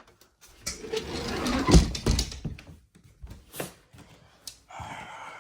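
A wooden dresser drawer being pulled open: a scraping slide with heavy thuds, followed by a few light clicks and knocks of things being handled inside.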